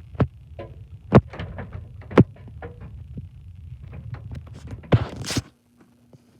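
A series of sharp, irregular knocks over a low rumble, with a louder scraping burst near the end before the sound cuts off abruptly.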